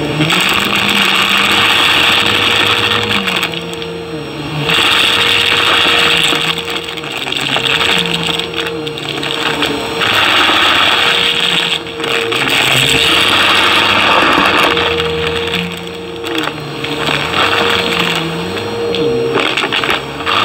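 Upright bagless vacuum cleaner running at full power while it is pushed over a pile of carpet lint and pistachio shells. The motor's pitch repeatedly dips and recovers as the head takes in the pile, and the rush of air swells and drops with each pass, with shells crunching and rattling as they are sucked up.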